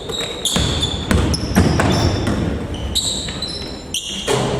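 Basketball game on an indoor court: the ball thudding on the floor again and again, with short high squeaks of sneakers on the court, in a large echoing hall.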